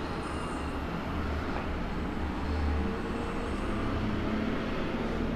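Steady low rumble and hum of background noise, with no distinct event standing out.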